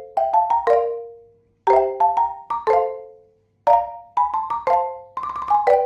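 Background music: a light mallet-percussion tune of struck notes that fade quickly, played in short phrases with brief pauses between them.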